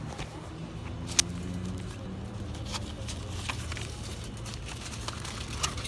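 A motor vehicle's engine running as a steady low hum, with a few sharp clicks over it, the loudest about a second in.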